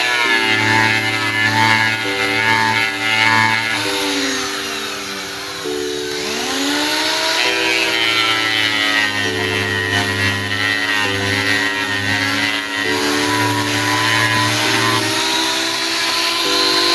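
Electronic background music: sustained synth chords changing about every two seconds over a steady bass, with sweeping rises and falls in pitch around the middle.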